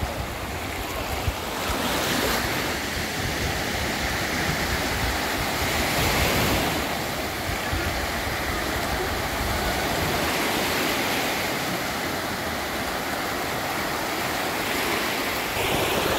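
Small sea waves breaking and washing up on a sandy beach, the surf swelling about every four seconds.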